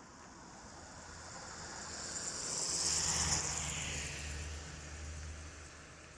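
A vehicle passing by: a rush of noise that swells to a peak about three seconds in and then fades away.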